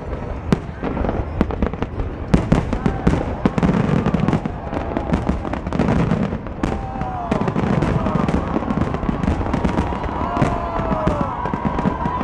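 Aerial fireworks bursting in quick succession: a dense run of sharp bangs and crackles, with spectators' voices underneath.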